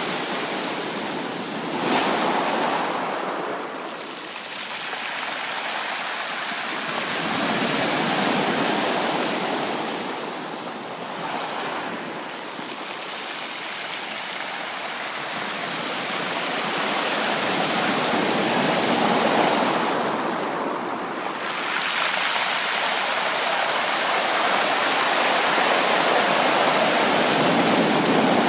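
Ocean waves breaking and washing up a beach, the surf swelling and ebbing every few seconds, with a sharp surge about two seconds in.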